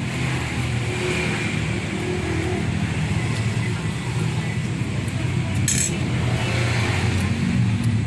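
A steady low mechanical hum, like a running engine, with one brief sharp clink a little past the middle.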